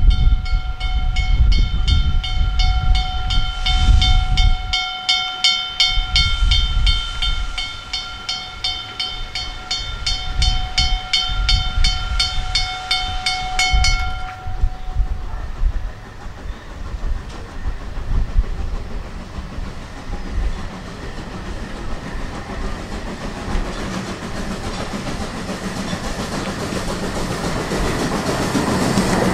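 Narrow-gauge steam train on a 750 mm line: for about the first fourteen seconds a steady pitched signal pulses three to four times a second over a low rumble, then stops. After that the train's running noise builds steadily, louder toward the end as it draws near.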